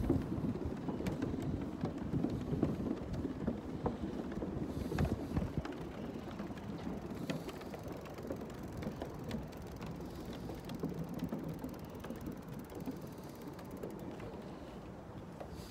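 Bicycle rolling over boardwalk and pavement: tyre noise with many small rattles and clicks from the bike, gradually getting quieter.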